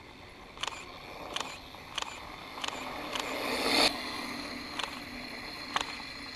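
Mountain bike descending a loose gravel track: tyres crunching over the stones, with about seven sharp knocks from the bike as it hits bumps. The gravel noise swells to its loudest about four seconds in.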